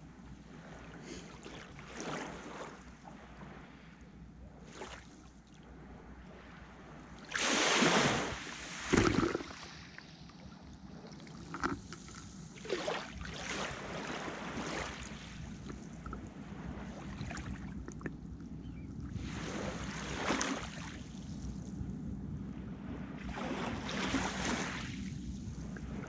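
Black Sea waves washing onto the shore, a wash of surf noise swelling and fading every few seconds, with two louder bursts about a third of the way in.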